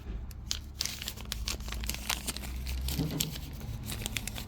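Packaging crinkling and rustling as it is handled, a dense run of small irregular crackles over a low steady hum.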